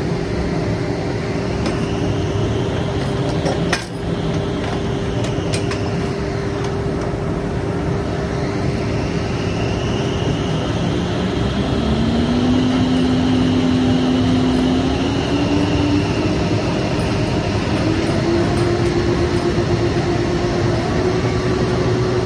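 Loud, steady drone of drilling-rig floor machinery, with a single metallic clink about four seconds in. From about halfway a second hum comes in and climbs in pitch in a few steps.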